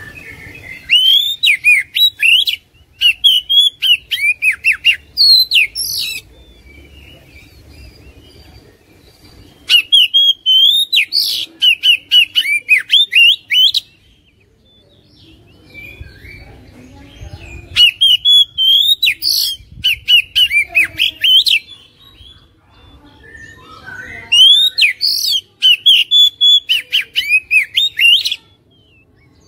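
Oriental magpie-robin singing loudly in four bouts of a few seconds each, every bout a quick run of repeated, sliding whistled notes, with short pauses between bouts.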